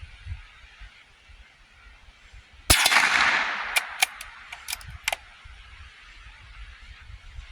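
.22 LR rifle firing a single shot, a sharp crack with an echo trailing off over about a second, followed by a quick run of six or so short, sharp clicks.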